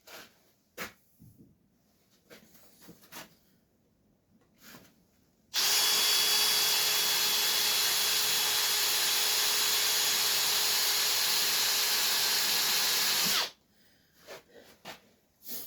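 Electric drill running steadily at an even pitch for about eight seconds, boring a cobalt drill bit into a bolt to drill it out, then stopping abruptly. A few light clicks and taps come before it starts.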